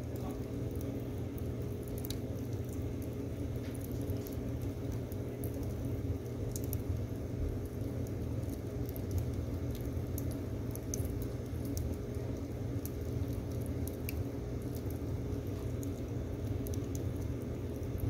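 Firewood logs burning in a wood stove, crackling with scattered small pops over a steady low rumble.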